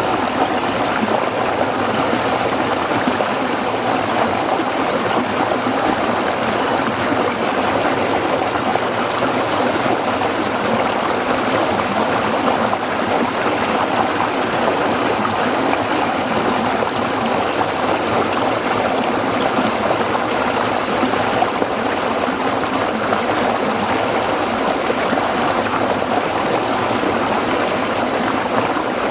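A waterfall rushing, a steady, unbroken roar of falling water.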